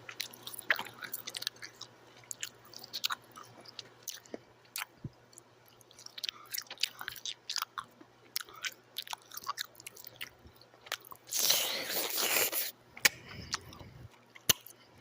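Chewing and mouth noises close to the microphone: irregular wet clicks and crackles, with a louder rushing burst lasting about a second and a half about eleven seconds in.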